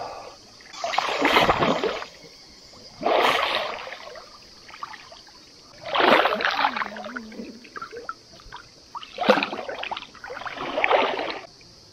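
Water splashing and sloshing close to the microphone as a person swims through a creek, in five separate bursts about a second or so long, over a steady high insect drone.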